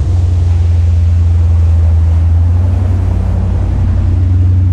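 Powerboat running at steady speed: a low, even engine drone under the rush of wake water and wind.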